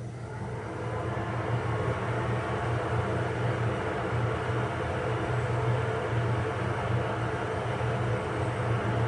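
TION Breezer Standard supply-air ventilator's fan speeding up to turbo mode: a rush of air over a low steady hum swells over the first second or so, then holds steady.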